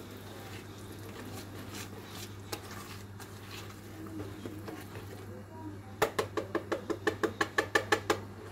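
Wire whisk stirring thick dough in a plastic bowl, quietly at first. About six seconds in comes a quick, even run of clacks, around seven a second for about two seconds, as the whisk beats against the bowl.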